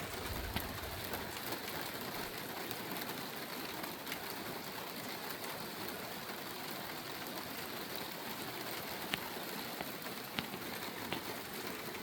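Steady rain shower falling, with individual drops ticking sharply now and then.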